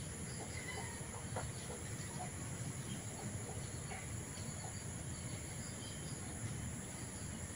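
Steady, high-pitched insect drone with short bird chirps scattered through it, over a low rumble.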